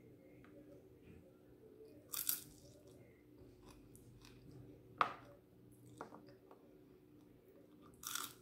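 Crunchy bites into a fried chicken wing and chewing, with a few short loud crunches, the last about eight seconds in. A faint steady hum lies underneath.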